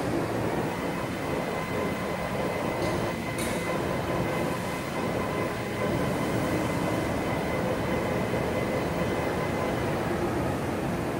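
Industrial machinery of a glass storage system running steadily, a dense mechanical rumble with a faint high whine that drops away about ten seconds in. Two short clicks sound about three seconds in.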